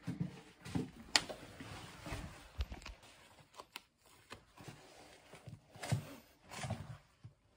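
Rustling and handling noise close to the microphone: clothing and a backpack brushing, with scattered light clicks and soft knocks.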